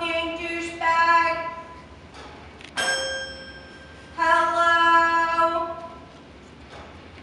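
A woman singing held notes, each about a second long, with chiming notes struck on a toy piano that ring and fade.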